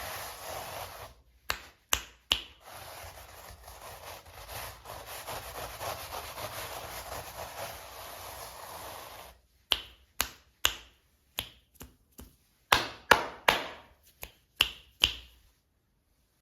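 Hands handling toy packaging: a steady rubbing, scraping noise broken by a few sharp clicks, then about a dozen sharp clicks and taps in quick succession that stop abruptly near the end.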